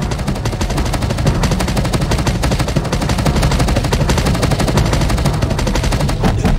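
A rapid-fire flurry of punch and block impacts from a kung-fu film fight's sound effects, too fast to count, running as one dense rattle like a machine gun. It stops suddenly near the end.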